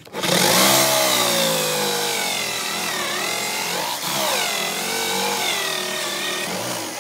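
Electric drill driving a hole saw into a wooden board. The motor runs loud under load, its pitch sagging and recovering as the saw teeth bite, then it cuts off at the end.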